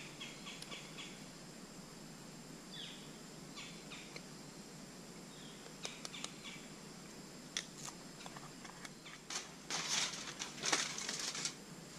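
Sheet of aluminum foil crinkling in a couple of loud bursts near the end, after a stretch of faint scattered clicks and taps.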